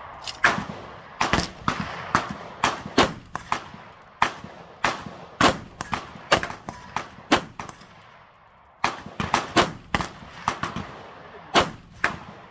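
AR-15 rifle (Bear Creek BC-15 upper, 16-inch barrel, 5.56 NATO) fired semi-automatically, about twenty shots at an uneven pace of one to two a second, each with a short echo. There is a brief pause about eight seconds in.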